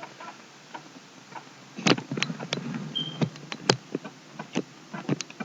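Macintosh PowerBook 180's internal floppy drive reading a boot disk: a run of clicks and ticks from the drive working, faint and slow at first, then louder and quicker from about two seconds in. A brief high tone sounds once near the middle.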